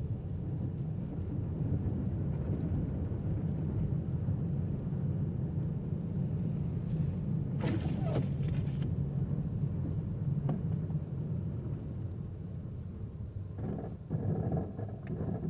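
A car driving, with a steady low rumble of engine and tyre noise. A brief hiss rises over it about halfway through.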